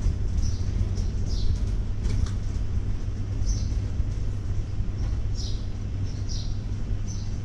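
Outdoor street ambience: a steady low rumble, with short, high, falling chirps of small birds repeating about once a second.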